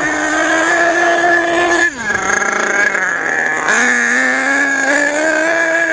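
Small nitro glow-fuel engine of an HPI Savage 4.6 RC monster truck running at high revs with a high, buzzing note. About two seconds in, the revs drop sharply as the throttle comes off, then climb partway back up.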